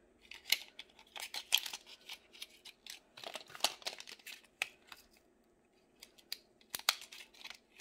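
Hands handling a lipstick and its small cardboard box: short spells of rustling and scraping packaging, with scattered clicks and one sharp click near the end.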